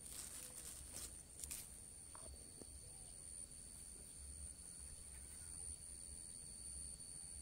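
Quiet outdoor ambience: a low wind rumble on the microphone and a steady high-pitched whine, with a few soft clicks and rustles in the first second and a half from the fishing rod and clothing being handled.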